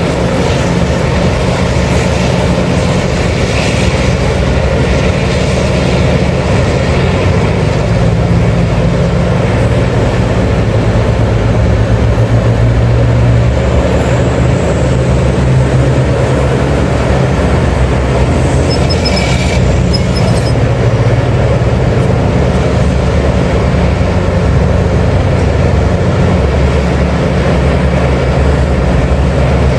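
Heavy diesel mining machinery running steadily: a loud, continuous low engine drone.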